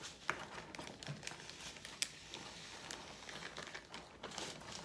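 Hands squishing and kneading freshly activated slime, a faint sticky crackling with scattered small clicks.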